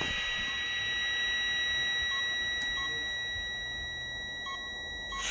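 Steady high-pitched alarm tone, held without a break, over a hiss that slowly fades.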